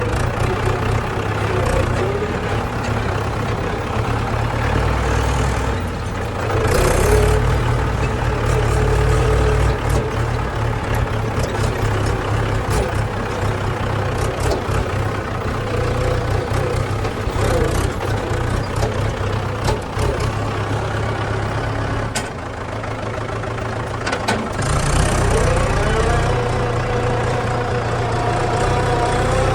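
Diesel engine of a JCB 3DX backhoe loader running under work, revving up about seven seconds in and again near the end.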